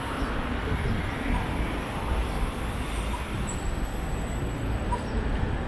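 Steady city street traffic noise from passing cars and buses, with a faint short beep repeating about every two seconds.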